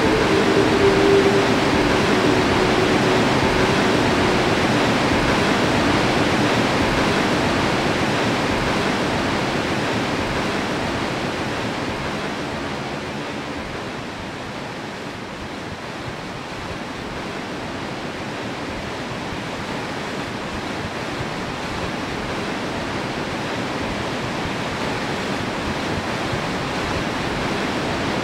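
Barnafoss waterfall's churning whitewater rushing steadily. A low hum heard at the start fades out within the first few seconds. The rush drops a little in level around the middle, then swells again.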